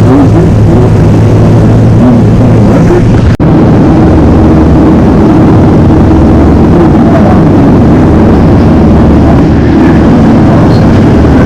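Tour boat's engine running steadily, heard loud on board under a rush of wind and water noise. It drops out for an instant about three and a half seconds in, then carries on.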